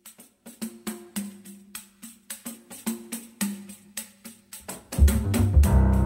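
Background music: a rhythm of light percussive ticks over a low note, with a fuller, louder part with bass coming in about five seconds in.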